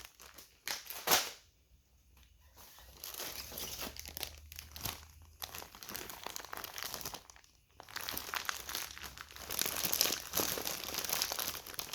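Packaged food bags crinkling and rustling as they are handled and pulled from a bag, with a sharp click about a second in and louder crinkling over the last few seconds.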